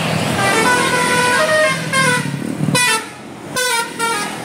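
Tour bus's 'telolet basuri' musical horn playing a tune of short stepped notes. It breaks off briefly about three seconds in, then sounds a few more notes.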